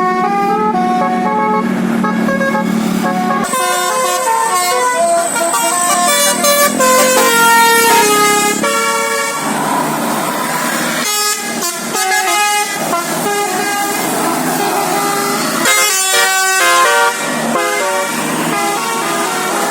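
A bus's basuri telolet musical air horn playing a melody. Quick runs of stepped notes sound several at a time in chords, and the tune changes several times.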